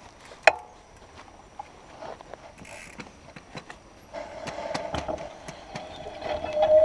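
Mountain bike rolling down a stony dirt track: the knobby tyre crunches over gravel and the bike rattles in quick clicks. About four seconds in a steady hum comes in and grows louder towards the end.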